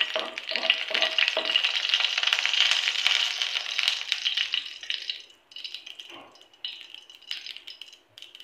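Mustard seeds crackling and popping in hot oil in a non-stick pan: the tempering stage, the seeds fully popped. The crackling is dense for about five seconds, then thins to scattered pops.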